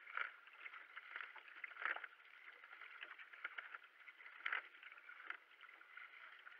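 Racing kayak being paddled: the double-bladed paddle splashes into the water at each stroke, about once every second or two, over the steady rush of water along the hull.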